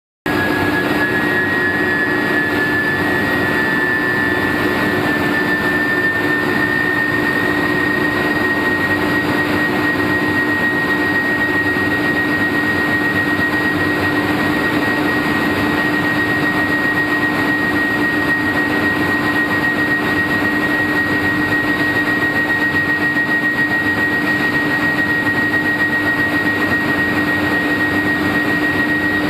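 Billet induction heating furnace running: a steady high-pitched whine that rises slightly in pitch over the first six seconds and then holds, over a lower hum and a steady wash of machine noise.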